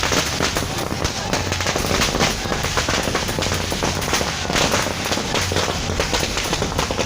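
Firecrackers going off in a rapid, continuous crackle of many sharp bangs.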